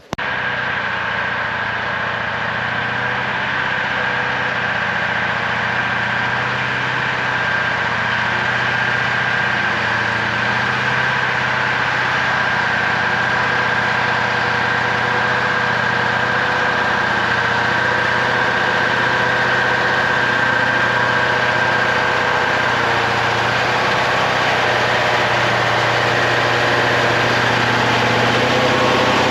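Kirovets K-742 tractor's diesel engine running steadily under load while pulling a cultivator, with a steady high whine over the engine sound.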